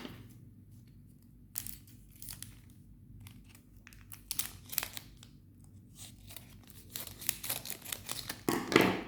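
Chocolate bar wrapper being torn open and crinkled by hand, in a scatter of short rustles that get busier and louder near the end.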